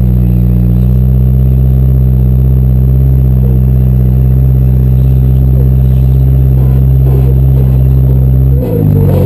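Demolition derby car's engine running loud at steady high revs, its pitch briefly dipping about eight and a half seconds in as the revs change.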